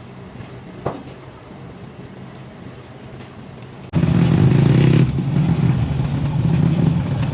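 A single click about a second in; about four seconds in, a loud steady motor-like hum comes in suddenly and keeps running.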